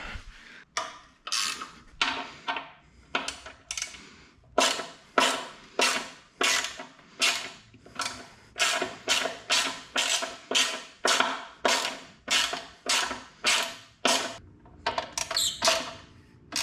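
Ratchet with a T27 Torx bit clicking steadily, about three clicks a second, as the front fender bolts are backed out. The clicking pauses briefly about two seconds before the end.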